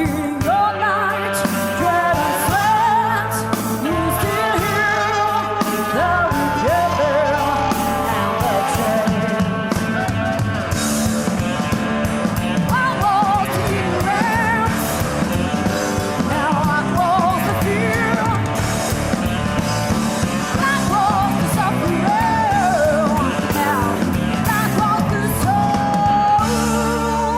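Live rock band playing, with a female lead singer holding long, wavering sung lines with vibrato over the band.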